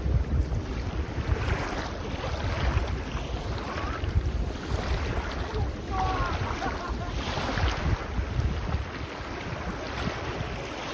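Small waves washing and breaking on a sandy beach in repeated surges, under a steady low rumble of wind buffeting the microphone. A few brief high chirps come about halfway through.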